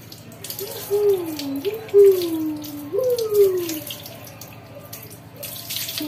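Water poured over a long-haired dog's coat during a bath, splashing in uneven gushes about one, two and three seconds in. Over the first half comes a wavering whine that slides down in pitch, jumps back up and slides down again.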